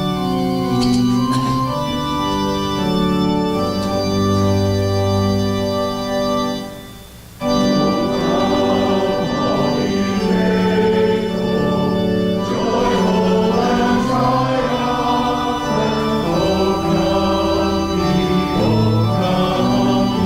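Organ playing a hymn. It breaks off briefly about seven seconds in, then resumes, and a congregation can be heard singing along with it.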